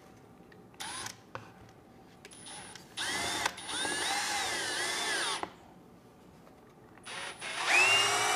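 Cordless drill driving a Torx-head screw through driftwood into an artificial rock. The motor whines in a short blip about a second in, then in two longer runs, its pitch wavering as the screw bites.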